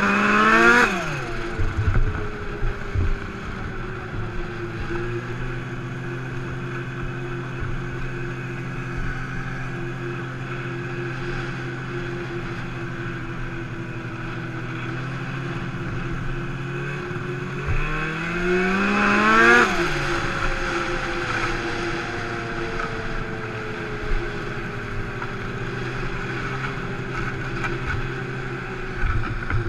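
Turbocharged Arctic Cat M1000 snowmobile's two-stroke twin engine, ridden at a steady cruise. It revs up sharply at the very start and again about eighteen seconds in, the pitch climbing for a second or two and then sliding slowly back down.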